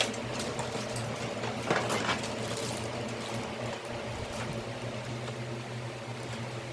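Steady fan-like hum in a small room, with a few light clicks and rattles of small parts being handled at the start and about two seconds in.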